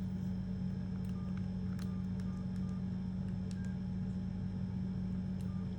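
Steady low hum, with about half a dozen faint short beeps of one pitch and a few light clicks scattered through it: keypad tones and button clicks from a Samsung SGH-T108 mobile phone.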